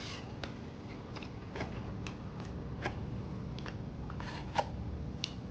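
Close-up chewing of a mouthful of cooked cabbage, with scattered short wet mouth clicks about every half second over a steady low room hum.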